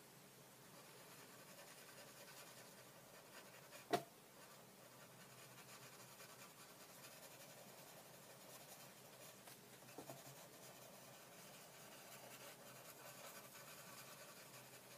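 Faint scratching of a 2B graphite pencil shading on paper in small circular strokes, with a single sharp click about four seconds in.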